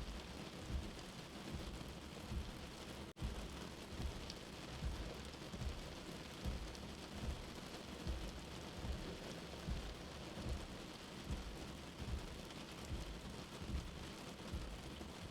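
Steady rain with a soft, low heartbeat thumping evenly about once every 0.8 seconds underneath. The sound drops out for an instant about three seconds in.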